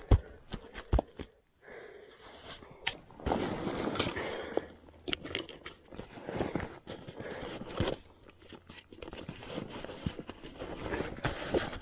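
Two sharp knocks of stones being set down in the first second, then rustling of backpack fabric with small clicks and knocks as hands rummage through the packs and gear.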